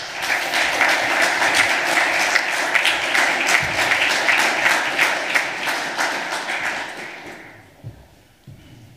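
Audience applauding: a dense clatter of many hands clapping, which dies away about seven or eight seconds in.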